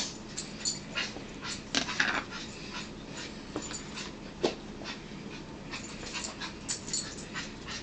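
A small dog breathing and panting close by, with scattered sharp clicks like cutlery on plates.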